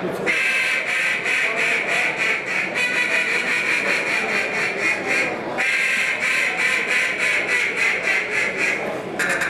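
A competition duck call blown in a rapid, continuous run of quacks, with brief breaks just after the start, about midway and near the end.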